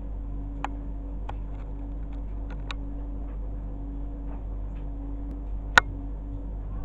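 Steady low hum of aquarium equipment, with a handful of sharp clicks scattered through it; the loudest click comes near the end.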